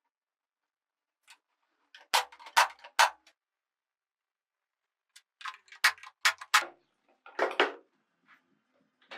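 Sharp taps and knocks from carpentry work, coming in irregular clusters of two to six with dead silence between them. A fuller, longer knock comes about three-quarters of the way through.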